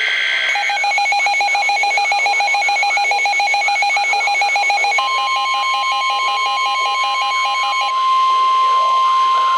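Emergency Alert System tones on NOAA Weather Radio, announcing a severe thunderstorm warning. It opens with the tail of a shrill SAME data burst, followed by a rapid, evenly pulsed electronic beeping alarm. About five seconds in, the steady 1050 Hz weather-radio warning tone starts and holds, and the beeping stops about three seconds later.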